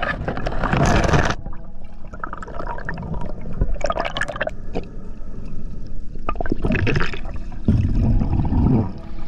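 Water gurgling and bubbling around a freediver's camera as it goes under the surface and moves down through the water. It comes in several surges: the strongest is in the first second, with more in the middle and near the end.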